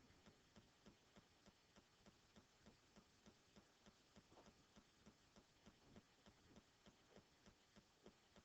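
Near silence: room tone with faint, regular ticking, about three or four ticks a second.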